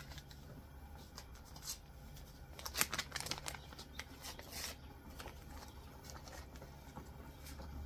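Paper packets of mild chili seasoning being opened and emptied: rustling and a scatter of sharp clicks, thickest around three seconds in, over a steady low hum.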